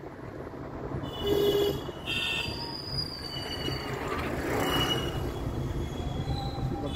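Vehicle driving over a rough dirt road: a steady low rumble with several short, high-pitched squeals on top.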